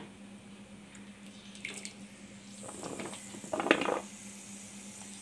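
Raw potato sticks slipped into hot oil in an iron kadai, with a few short splashes and a light sizzle starting to rise; the loudest splash comes a little under four seconds in. A steady low hum runs underneath.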